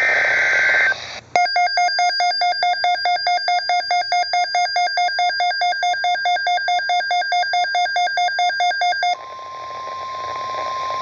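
Emergency Alert System sequence on a weather radio. It opens with the tail of a screeching data burst, then the receiver's electronic alert alarm beeps rapidly, about four beeps a second. About nine seconds in, the steady NOAA Weather Radio warning alarm tone of about 1050 Hz takes over.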